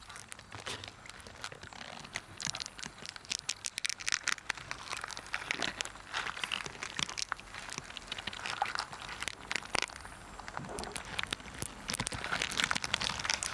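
Irregular crackling and crunching, a dense run of small sharp clicks: a female water beetle working her ovipositor into water iris stalks to lay her eggs.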